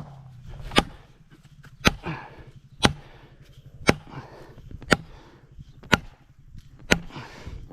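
Hammer striking a felling wedge in the back cut of a leaning tree, about seven sharp blows at a steady pace of roughly one a second, driving the wedge in to tip the tree toward its intended fall.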